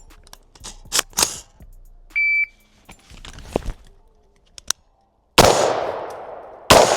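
Shot timer's start beep, one short high tone, followed about three seconds later by two rifle shots roughly 1.3 s apart, each ringing out in a long fading echo. A few handling clicks come before the beep.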